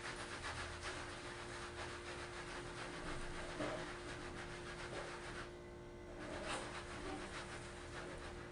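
Hair curl sponge rubbed in repeated scrubbing strokes over short, coarse 4C hair, with a brief pause a little past halfway.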